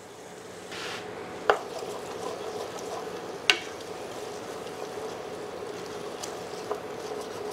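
A wooden spatula stirs and scrapes onion masala and ginger-garlic paste frying in oil in an open pressure cooker, at the bhuna stage, with a steady low sizzle. Two sharp knocks sound about two seconds apart as the spatula hits the pot.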